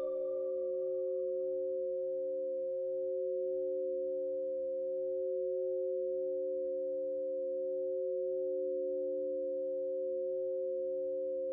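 Steady electronic sine tones, a few low pitches held together as an unbroken drone with a slow, gentle wavering: a 'frequency' tone played for meditation or manifestation.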